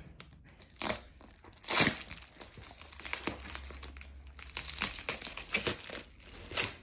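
A taped parcel's wrapping crinkling and tearing as it is handled and cut open with a small knife, in irregular rasps, the loudest about one and two seconds in.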